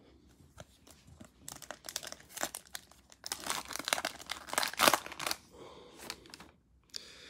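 Foil trading-card pack being torn open and crinkled by hand: irregular crackling and ripping of the foil wrapper, starting about a second and a half in and loudest near five seconds, then dying down.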